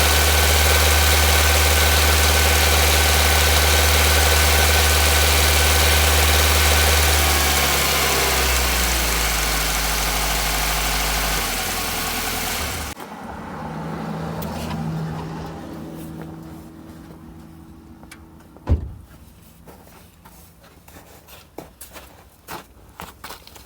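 Nissan Micra's HR16DE four-cylinder engine running steadily; the owner's complaint is that it knocks at certain revs. It drops in speed about eight seconds in and again a few seconds later, then shuts off about halfway through. A single sharp thump and a few light clicks follow.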